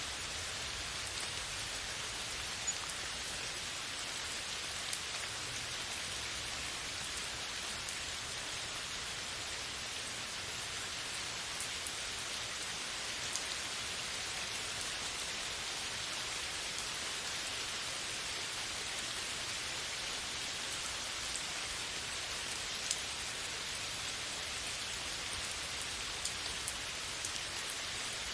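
Steady downpour of rain on a forest's leafy canopy: an even hiss, with a few louder single drops ticking now and then.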